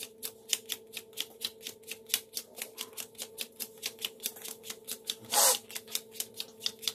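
Playing cards dealt one after another onto a cloth close-up mat in sped-up footage, each landing with a sharp click, about five a second in a fast, even run. About five and a half seconds in comes a short, louder rustle of cards. A faint steady hum lies underneath.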